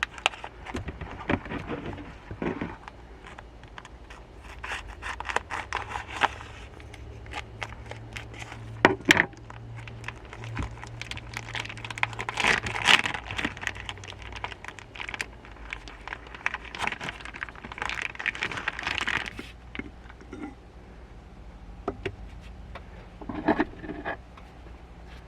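Objects being handled at close range: irregular scraping, crinkling and small clicks, in bunches with short pauses between them.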